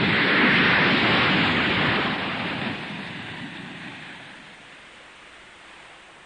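Big splash of a car plunging into water: a sudden loud rush of water and spray that dies away over about four seconds.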